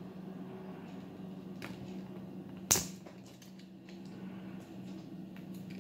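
Small plastic and metal clicks and scrapes of a microphone being forced onto a Canon M50 camera, a stiff fit, with one sharp click about two and a half seconds in and a few fainter ticks around it. A steady low hum runs underneath.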